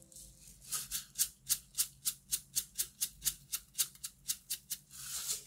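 Handheld sesame seed grinder worked over food in quick, even grinding strokes, about four a second, sprinkling toasted sesame seeds. It ends with one longer grinding sweep.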